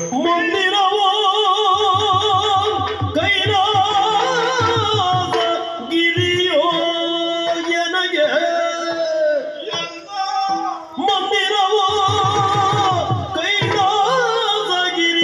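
Yakshagana bhagavata's male voice singing an ornamented line with a wide, wavering vibrato over a steady drone. Maddale barrel drum strokes come in near the start, again around two to three seconds in, and once more near the end.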